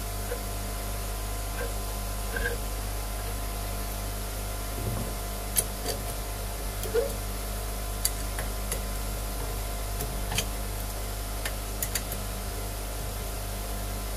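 Adjustable wrench working the bronze cap of a boat's seawater strainer as it is tightened down: a few sharp metallic clicks, spread over several seconds, over a steady hum.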